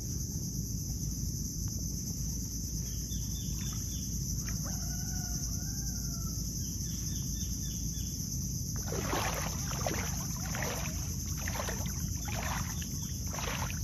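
Steady high buzzing of insects, with a faint rooster crowing a few seconds in. From about nine seconds, repeated splashes of legs wading through fairly deep water.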